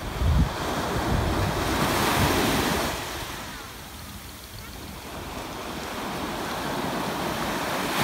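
Small waves breaking and washing up a sandy beach: the hiss of surf swells over the first three seconds, eases off, then builds again near the end. Wind buffets the microphone with low rumbles near the start.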